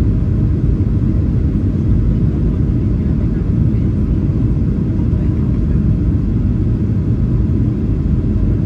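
Steady low rumble of cabin noise inside a Boeing 737-900 on approach, engine and airflow noise heard from a window seat over the wing.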